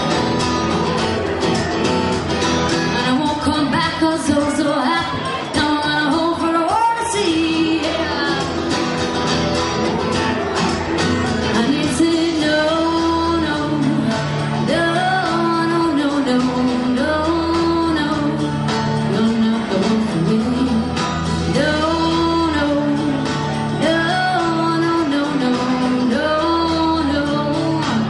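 A woman singing a song live into a microphone with amplified electric guitar accompaniment.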